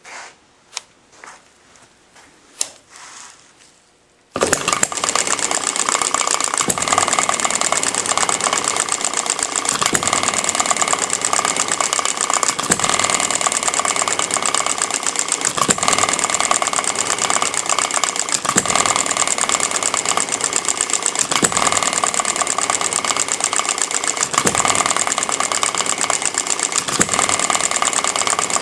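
A few clicks and knocks, then about four seconds in the Upshur model hit-and-miss engine starts suddenly and runs fast and steadily, with an occasional louder knock. Its flywheel governor is set with one strong spring and two heavy weights.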